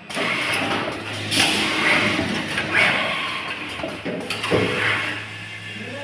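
JM800 automatic lug crimping and ferrule marking machine running: a steady low hum from its vibrating bowl feeders, with short air hisses about every one and a half seconds and a few sharp clicks and clunks from the crimping and cable-handling stations.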